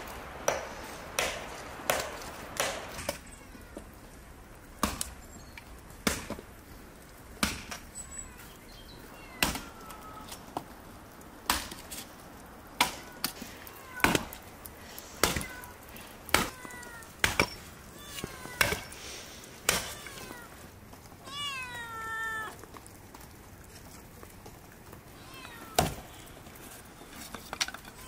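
A hatchet chopping thin branches into kindling on a wooden chopping block, the sharp chops coming about one a second for most of the time, then stopping, with a single chop near the end. A cat meows several times between the chops, with its longest meow about three-quarters of the way through.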